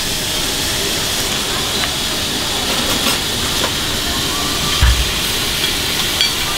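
Food sizzling and hissing steadily on a hot iron serving plate of tieban rice. A dull thump comes about five seconds in.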